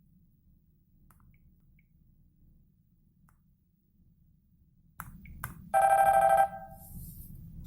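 Samsung GT-E2652W Champ Duos mobile phone playing a short electronic power chime through its small built-in speaker, under a second long with several pitches sounding together. Two clicks come just before it, and a faint speaker hiss starts with them.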